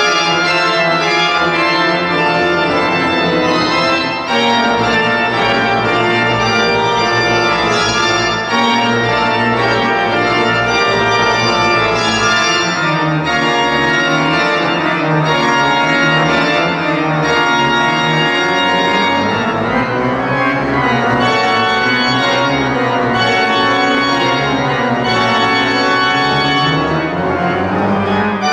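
Kuhn pipe organ playing loud, dense sustained chords that move from one to the next without a break.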